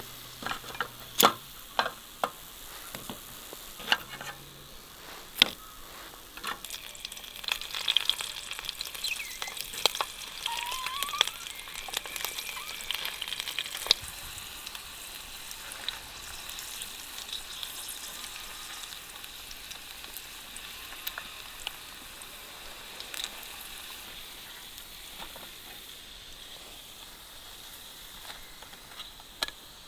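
Food sizzling and frying in a pan, a steady hiss that grows louder for a few seconds in the middle, with sharp knocks of a utensil or pan in the first few seconds.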